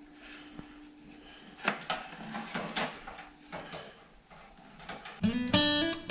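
A few sharp knocks and clatters of things being handled, then strummed acoustic guitar music comes in near the end and is louder.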